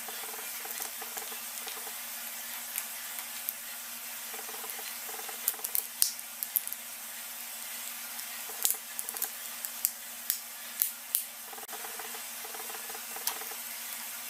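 Light, sharp plastic clicks and taps from handling a cell phone's casing parts during reassembly, mostly bunched in the middle, over a steady hiss and faint hum.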